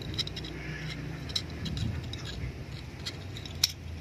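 Small metal clicks and light rattling of a homemade spear gun's steel trigger plates and curved trigger lever being fitted together by hand, with a sharper click about three and a half seconds in.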